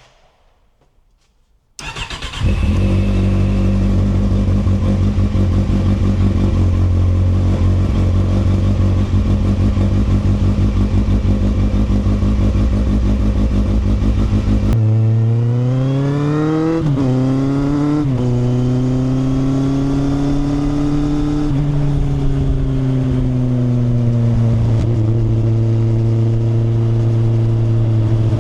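Kawasaki motorcycle engine starting about two seconds in and idling steadily, then revving up as the bike pulls away about halfway through, its pitch rising and dropping sharply twice at gear changes before settling into a steady cruise.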